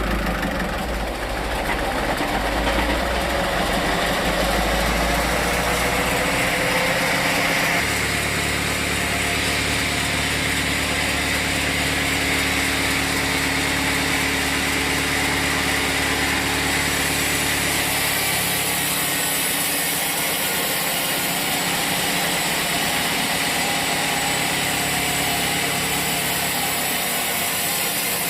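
Engine-driven sawmill machinery running steadily. The low engine hum changes pitch about 8 seconds in and fades away around 19 seconds, leaving a higher, hissing mechanical noise.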